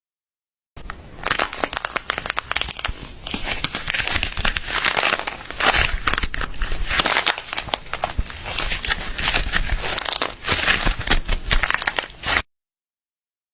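Slime being squeezed and worked by hand, a dense crackling of many small clicks and pops in uneven swells; it starts abruptly about a second in and cuts off abruptly near the end.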